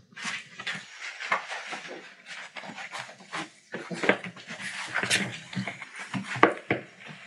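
Litter of four-week-old collie puppies play-wrestling: an irregular run of short scuffles and small puppy noises.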